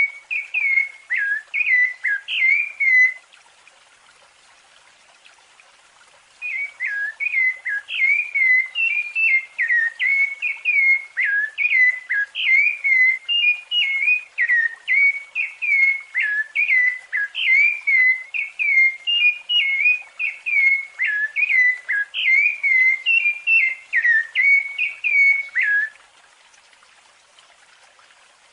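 Rufous-bellied thrush (sabiá-laranjeira) singing its fluted song in quick runs of clear whistled notes that slur up and down. The song breaks off for a few seconds about three seconds in, sings on steadily for about twenty seconds, then pauses again near the end.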